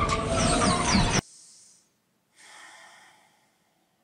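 Action-film soundtrack of a vehicle crash and skidding, with music, cutting off abruptly about a second in. It is followed by a faint breath out, like a weary sigh.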